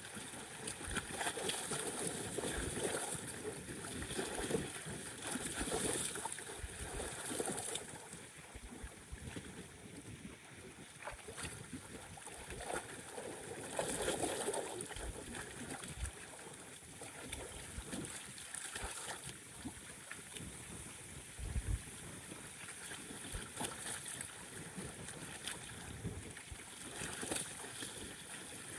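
Storm wind buffeting the microphone in uneven gusts over rough lake water churning and slapping against the shore.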